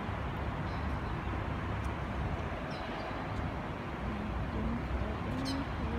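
Steady low background rumble of an outdoor city plaza, the hum of distant traffic, with faint distant voices near the end.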